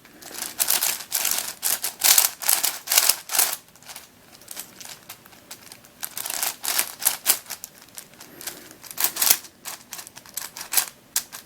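Plastic clicking and clacking of a Witeden 4x4x4 Mixup Plus shape-shifting puzzle cube being turned by hand, in bursts of quick turns with short pauses between them.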